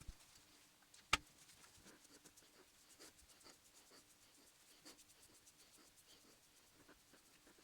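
Near silence with faint rubbing and light ticks of hands handling parts, and one sharp click about a second in.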